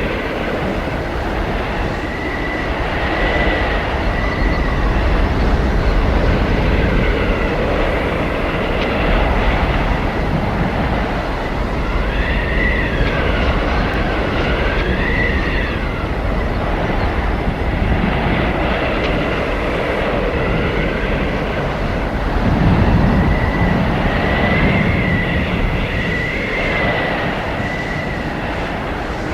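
Blizzard wind blowing hard and without a break, with low gusty rumbling. A thin whistling howl rises and falls in pitch, wavering most in the middle and again near the end.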